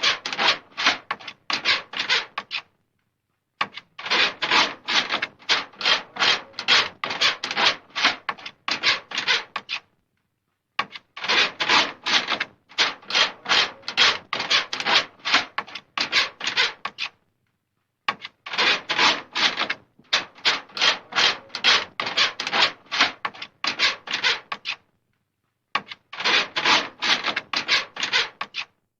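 Scratching on a wooden door, in rapid rasping strokes of a few per second, coming in five runs of several seconds with short silent pauses between them.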